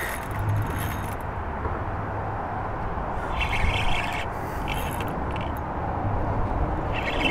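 Spinning reel whirring in three short spells, about three and a half seconds in, again around five seconds, and near the end, as line goes out or comes in during the fight with a big redfish on light tackle. A steady wind rush on the microphone runs underneath.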